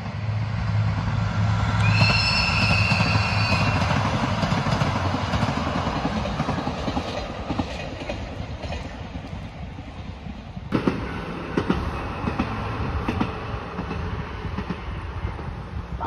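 A train passing by: a steady rumble with a low hum, a brief high wheel squeal about two seconds in, and rattling clicks in the last few seconds.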